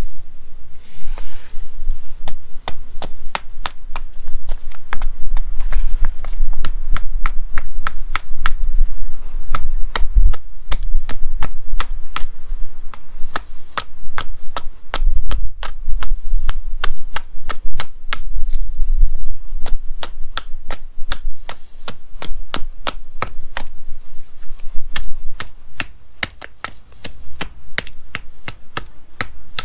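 A large knife cutting and splitting thin sticks of dry wood into kindling: a long run of sharp, irregular clicks and cracks, a few each second, as the blade bites through the wood.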